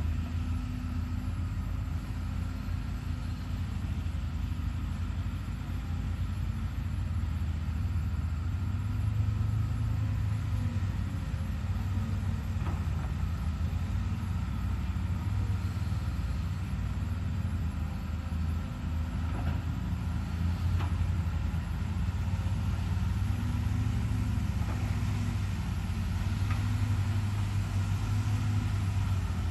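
Hyundai HX210HD excavator's diesel engine running steadily with a deep drone that swells a little now and then, with a few faint clinks.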